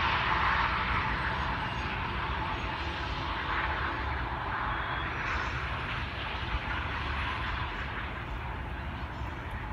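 Double-stack intermodal well cars rolling past: a steady roar and rumble of steel wheels on rail, easing slightly toward the end.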